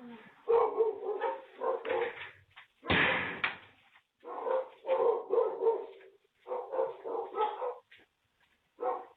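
A dog barking over and over in short runs of several barks, with brief pauses between the runs; the loudest, harshest bark comes about three seconds in.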